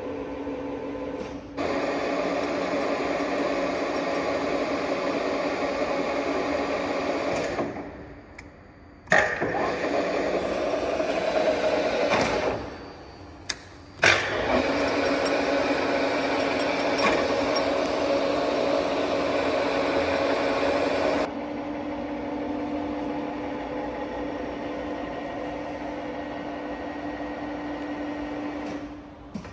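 Kiheung KMB-U-6 milling machine running, its milling head and drive giving a steady mechanical hum with a constant tone. The sound drops abruptly to a quieter hum twice, each time ending with a sharp click, and settles to a lower, steadier hum about two-thirds of the way through.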